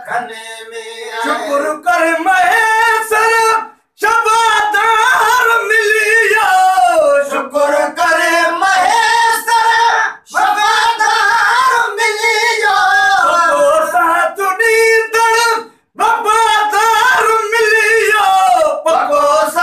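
Men singing together unaccompanied in long, wavering melodic phrases, with a short breath break about every six seconds.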